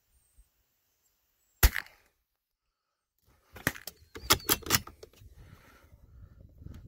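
A single rifle shot about a second and a half in, a sharp crack with a short echo. About two seconds later comes a run of five or so quick clicks and knocks from handling the rifle.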